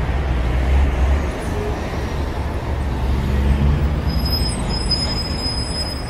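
Steady low outdoor rumble that swells and eases, with a thin high-pitched whine for about the last two seconds.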